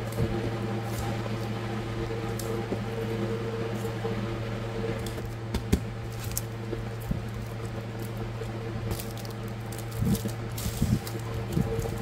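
Plastic-sleeved sticker sheets being handled on a desk: light crinkles and clicks of the cellophane, with a few louder knocks near the end as a stack is squared against the tabletop. Under it runs a steady low mechanical hum.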